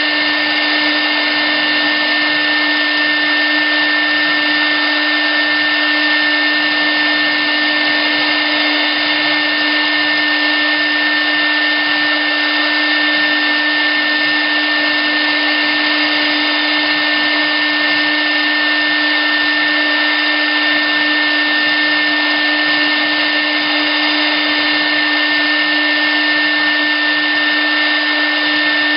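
CNC router spindle running steadily, its bit milling a clear acrylic sheet: a constant whine over an even hiss of cutting, with no change in pitch.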